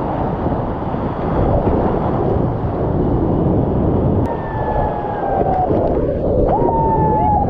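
Whitewater rapid rushing and breaking around the kayak's hull, close and loud as the boat runs through it. From about four seconds in, a thin high tone rides over the water noise, wavering and bending up and down in pitch.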